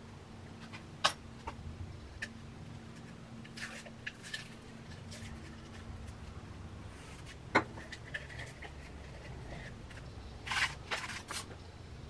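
Scattered small scrapes, clicks and taps of hand tools and hands working soft clay pieces, over a faint steady hum. There is a sharp tap past the middle and a short run of scrapes near the end.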